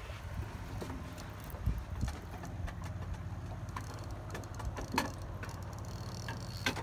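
Boat motor idling with a steady low hum, with a few sharp clicks over it, the loudest about five seconds in.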